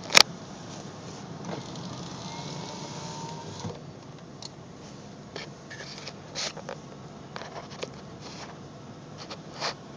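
Steady rushing noise of wind and storm surf, with scattered sharp clicks and taps over it and one loud click just after the start.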